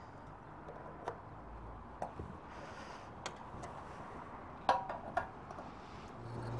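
Refuelling a motorcycle at a petrol pump, filling the tank to the brim: a low hum that grows louder near the end, with a few scattered clicks and knocks from the fuel nozzle.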